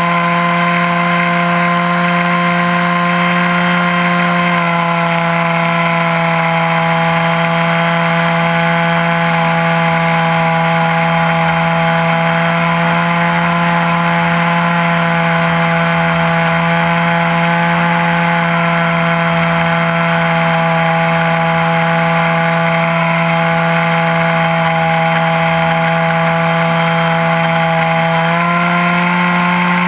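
ASP 61 two-stroke glow model-aircraft engine running steadily in flight, heard up close from on board the plane. Its pitch drops slightly about four seconds in and climbs back near the end.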